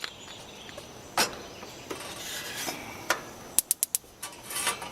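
Light knocks and clicks from a mess kit pan and oil bottle being handled, with a quick run of four sharp clicks about three and a half seconds in.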